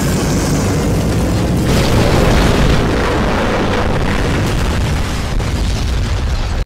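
Animated explosion sound effects: loud, continuous booming blasts with heavy low-end noise that cut off suddenly at the end.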